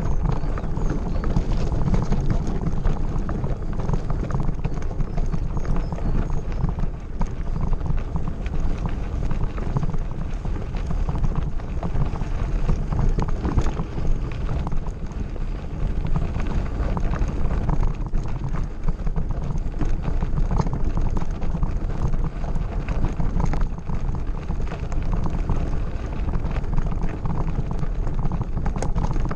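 Mountain bike rolling fast down a gravel forest road: tyres crunching over loose stones and the bike rattling with a constant patter of small knocks, over a steady low rumble.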